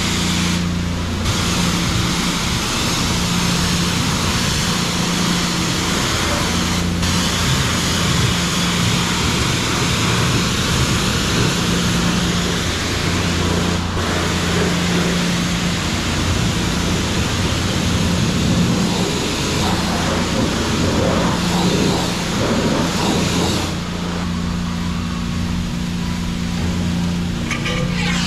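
High-pressure wash wand at a self-service car wash spraying water onto a car: a loud, steady hiss of spray over a steady low hum. The spray gets slightly quieter near the end.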